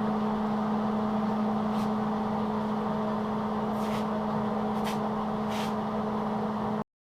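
A machine running steadily with a constant low hum, with four short hissing scrapes over it. It starts and cuts off abruptly.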